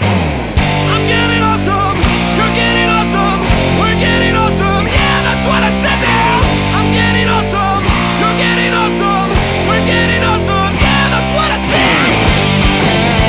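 Loud hard rock music with electric guitar and a strong, regular beat.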